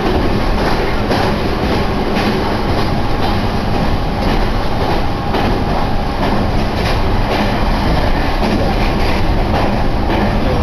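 Meitetsu Takehana Line train running, heard from inside the passenger car: a steady rumble of wheels on rail with a faint steady hum and scattered clacks from the track.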